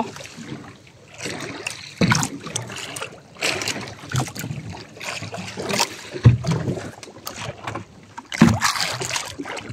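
Sea water lapping and splashing against the hull of a small outrigger fishing boat, with irregular knocks as a fishing line is hauled in by hand over the side.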